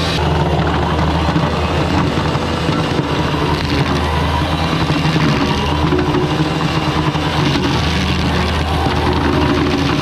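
Bobcat skid-steer engine running steadily, a low even drone that rises and dips a little.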